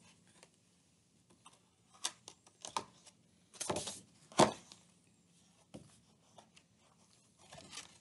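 Pages of a book being handled and turned: scattered paper rustles and flaps, the loudest a sharp flap a little over four seconds in.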